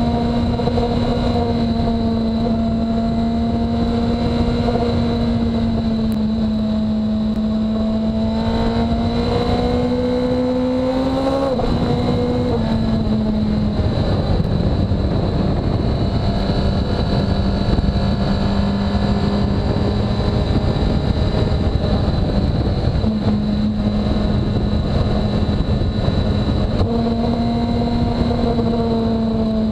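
2017 Suzuki GSX-R1000R's inline-four engine under way on the road, heard from an onboard camera over wind and road noise. The engine note climbs about ten seconds in and drops sharply around twelve seconds, runs lower for a while, then rises again in two steps near the end.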